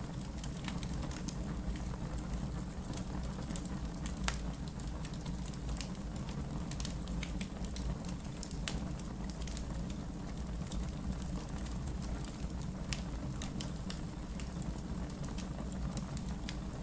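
Wood fire in a fireplace crackling steadily over a low rumble of the flames, with scattered sharp pops, a couple of them louder.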